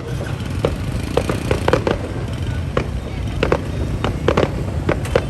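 Fireworks going off: an irregular run of sharp bangs and pops, several a second, over a continuous low rumble.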